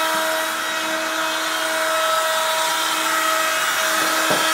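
Makita trim router, serving as the CNC machine's spindle, running at speed with a steady high whine. A brief knock sounds near the end.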